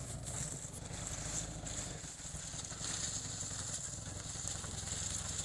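Off-road vehicle's engine idling steadily, waiting to be turned around on a narrow bush track.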